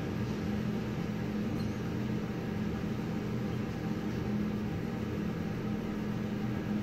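Steady running hum inside the car of a Dong Yang CL70 high-speed traction elevator travelling down at speed, with a constant low drone and no change in level.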